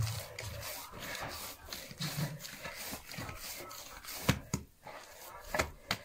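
Hands kneading oiled bread dough in a wide glazed earthenware bowl: the dough rubbing and pressing against the clay, with a few sharper knocks about four seconds in and near the end.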